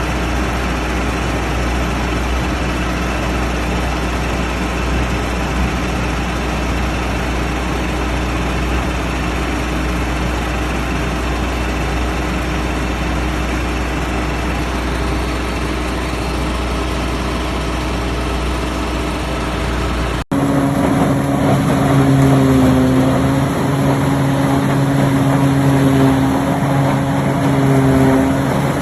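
Diesel engine of a self-propelled silage harvester running steadily under load, with a heavy low drone. About twenty seconds in it cuts abruptly to another harvester's engine, a higher steady hum whose pitch dips briefly a few times.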